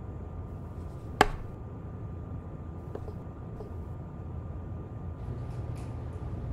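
A single sharp knock about a second in, then faint clicks and light rustling of hands handling a lidded cup on a wooden table, over a steady low hum.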